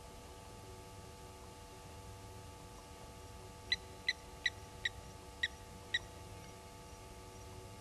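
Blacksmith lapwing giving six sharp, metallic 'tink' calls in quick succession about halfway through: its alarm call at an African harrier-hawk. A faint steady hum lies underneath.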